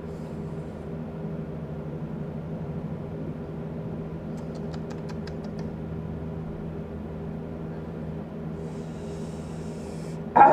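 Steady low electrical or mechanical hum of the room, with a quick run of faint high ticks, about six a second, around the middle.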